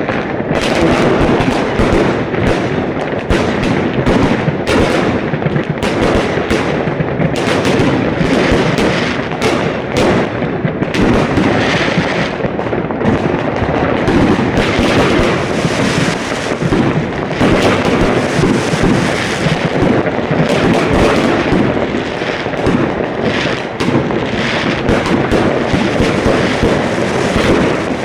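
Fireworks display going off in a dense, continuous barrage of overlapping bangs, with no pause throughout.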